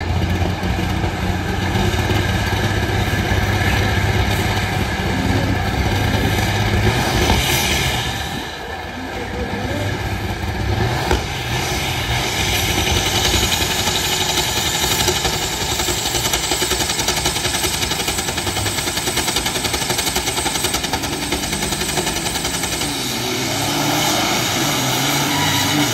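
Diesel engines of two big-rig semi-truck tractors running and revving while staged at the start line of a drag race. The engines are loud throughout, with a brief dip about eight seconds in and a rise near the end.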